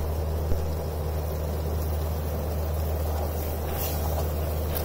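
Sugar syrup boiling rapidly in a steel pot, a steady bubbling over a constant low hum, with a light spatula stir near the end.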